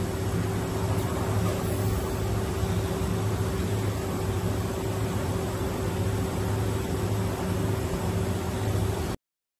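Steady machine noise from an automated machining cell at work: an even hiss with a constant tone and a low hum that pulses in a regular rhythm. It cuts off abruptly near the end.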